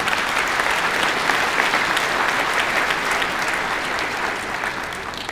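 Large audience applauding, many hands clapping at once, dying away near the end.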